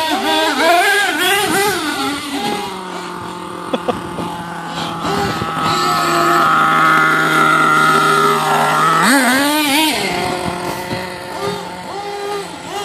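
Small nitro engine of a radio-controlled monster truck revving up and down, then holding one steady high pitch for several seconds at full throttle, and revving again about nine seconds in. A couple of sharp clicks come about four and five seconds in.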